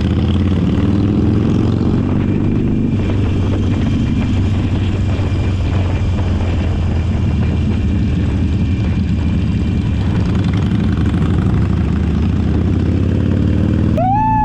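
Harley-Davidson V-twin motorcycle engine running steadily under way, with the throttle opened a little about a second in. A short high tone rises and falls near the end.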